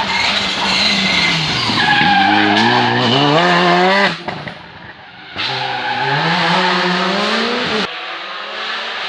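Rally car engine revving hard as the car drifts through a stage. The pitch climbs twice, broken by a sudden drop of about a second in the middle, and the sound cuts off sharply near the end.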